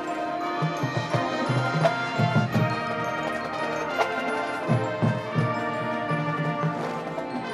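High school marching band playing its show music: brass and woodwinds holding sustained chords, with irregular low drum beats underneath and a sharp hit about four seconds in.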